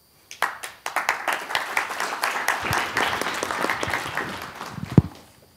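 Audience applauding, starting about half a second in and fading out near the end, with a single sharp thump just before it ends.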